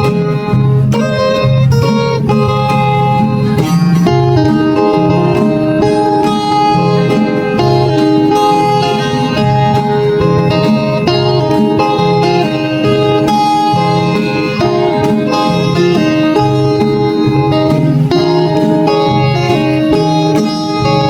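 Background music led by plucked guitar, playing continuously at a steady level.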